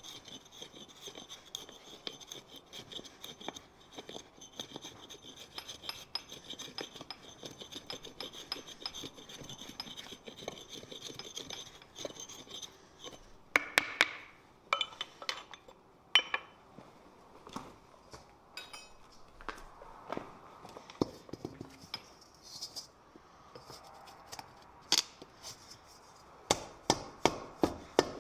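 A blade scraping and shaving wood off the end of a wooden stick to shape a handle, steadily for about twelve seconds. Then a few sharp wooden knocks, and near the end a quick run of knocks as the stick is rapped end-down on a wooden stump, fitting the handle into the forged wok's socket.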